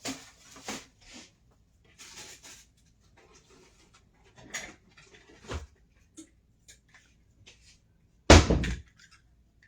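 Kitchen handling noises: scattered clicks, knocks and rustles as food and containers are moved about, with one loud, heavy thump near the end.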